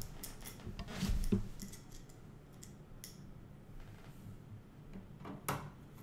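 Small metallic clicks and ticks of a screwdriver and screws as a motherboard is screwed down into a metal computer case, with a dull knock about a second in and a louder sharp knock near the end.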